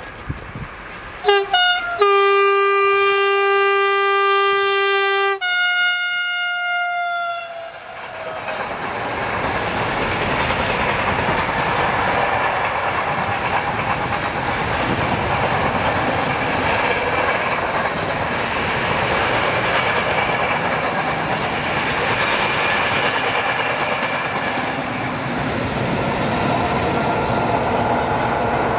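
Freight locomotive sounding its horn: two short toots, then a long blast whose pitch drops about five seconds in as the locomotive passes. It is followed by the steady rumble and clatter of loaded container wagons rolling by.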